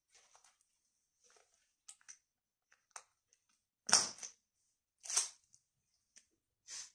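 Gloved hands working during a waxing treatment: short rustles and small clicks, with brief louder rustling noises about four seconds in, again a second later, and near the end.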